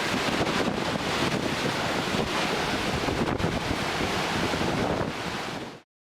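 Cyclone-driven rough sea, waves crashing against the waterfront, with strong wind buffeting the microphone. The sound cuts off suddenly near the end.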